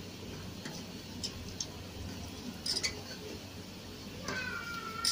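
Peyaju fritters sizzling as they deep-fry in hot oil in a steel pot, with light clicks of a fork against the pot as they are turned. Near the end a steady high whistle-like tone begins.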